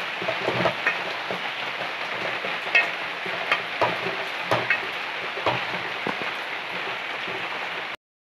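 Onion and mashed-potato masala sizzling in an aluminium pot while a wooden spatula stirs and mashes it, knocking and scraping against the pot every half second to a second. The sound cuts off abruptly near the end.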